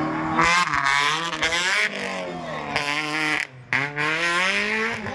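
Tubular off-road buggy's engine revving hard, its pitch climbing and falling again several times as it is blipped and driven, with a brief drop about three and a half seconds in.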